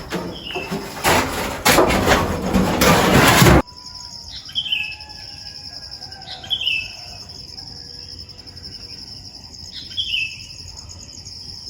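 A loud rushing noise for the first three and a half seconds, cutting off suddenly. After it, a bird gives short descending chirps about four times over a steady high insect trill.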